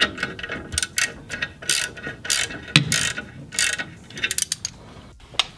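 Hand ratchet wrench clicking in short rasping runs, irregularly spaced, as the bolts of a stage 3 clutch pressure plate are run down onto the flywheel.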